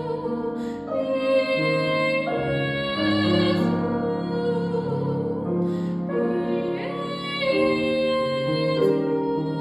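Two young female voices singing a classical vocal duet to grand piano accompaniment, holding long notes with vibrato.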